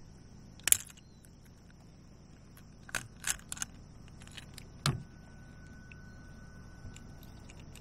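Short sharp clicks and light metallic rattles as a hooked lure is worked out of a largemouth bass's mouth by hand. The loudest click comes about a second in, a few more cluster around three seconds in and another comes near five seconds.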